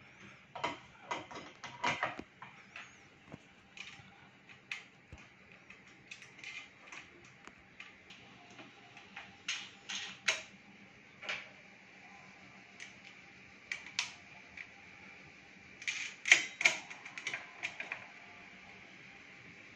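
Irregular clicks and light knocks of small metal bolts and nuts being handled and fitted into a heat press's base plate during assembly. A louder cluster of clicks comes near the end.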